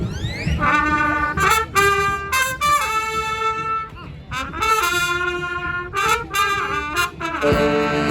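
Street brass band with trumpets and trombones starting a tune: a rising glide at the start, then held chords broken by short, punchy stabs, and the fuller band coming in near the end.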